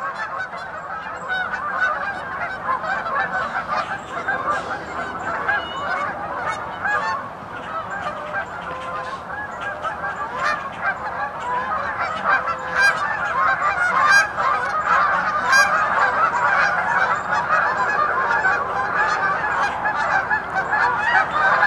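A large flock of geese honking continuously, many calls overlapping into a dense chorus that grows somewhat louder in the second half.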